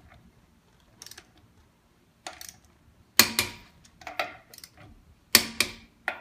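Click-type torque wrench on a car's wheel lug nuts: a series of short sharp clicks, the loudest about three and five and a half seconds in, as each nut is brought to its set torque of about 95 foot-pounds.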